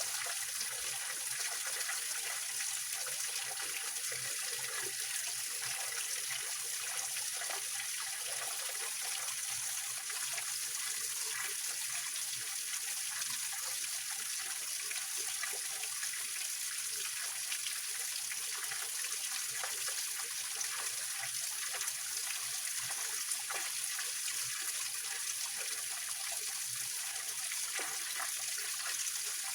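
Small waterfall and stream water splashing and trickling over rocks, a steady rushing with fine gurgling detail.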